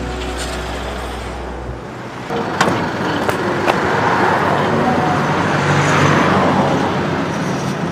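A road vehicle passes by. Its engine and tyre noise builds a couple of seconds in, is strongest near the middle and eases off toward the end.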